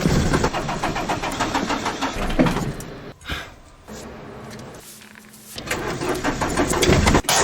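Citroen C15's carburettor petrol engine being cranked and catching hard, revving unevenly as the accelerator is pumped, the sign of a stubborn, possibly flooded, cold start. It is loud for the first three seconds, drops back and runs quieter for a couple of seconds, then surges loud again near the end.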